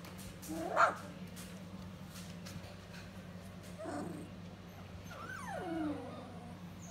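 Three-week-old standard poodle puppies yipping: a sharp yip about a second in, a softer one near four seconds, then a whine falling steeply in pitch near the end.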